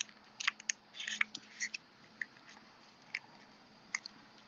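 Rolled paper banknote crinkling and rustling as it is slid through a paper money loop on a card: a cluster of small crackles in the first couple of seconds, then a few scattered ticks.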